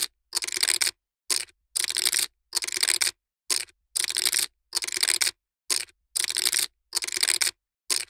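Poker chips being shuffled over and over: each shuffle is a quick clattering rattle of clicking chips lasting about half a second, coming roughly every three quarters of a second with dead silence between.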